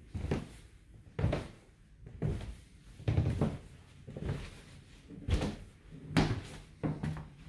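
Footsteps going down a carpeted staircase and onto the hallway floor: a dull thud about once a second.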